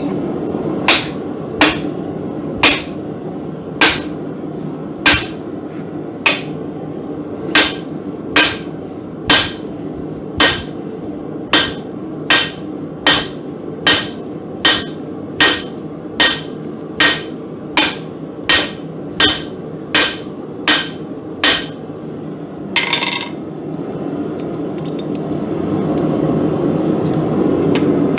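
Blacksmith's hammer striking heated mild steel on an anvil, about twenty blows at a little over one a second that come slightly faster as they go on, while the forge runs steadily underneath. About 23 seconds in there is a short metallic clatter, then the forge noise alone swells.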